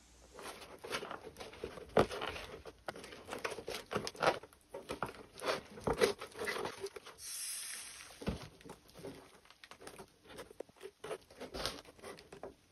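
Dried wallpaper paste crackling as jute cord comes away from the inflatable ball inside a cord lampshade sphere, in irregular small cracks and rustles. A brief hiss of air escapes about seven seconds in.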